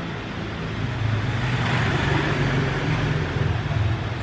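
Steady motor hum, like a motor vehicle passing, swelling from about a second in and easing off near the end.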